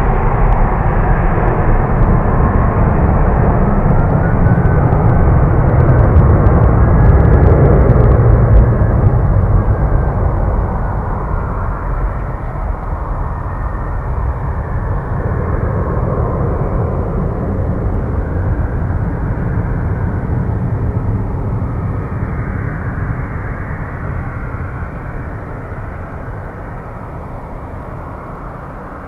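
Airbus A330 jet engines at take-off power, a loud rumble with a faint gliding whine that peaks several seconds in and then fades steadily as the airliner climbs away.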